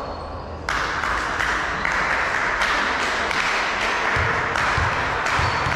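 Spectators clapping, starting suddenly under a second in and keeping on. A few low thuds join near the end.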